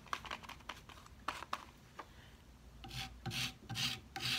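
A brush scrubbing back and forth over a painted wooden drawer front, about two strokes a second, starting about three seconds in and working the freshly misted paint. Before that there are only a few light taps and clicks.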